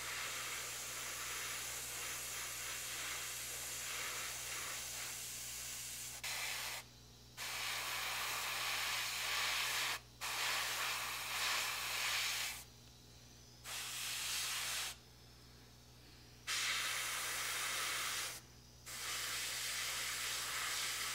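PS290 airbrush spraying primer in hissing bursts: one long pass of about six seconds, then several shorter passes of one to three seconds, each starting and stopping sharply with brief pauses between.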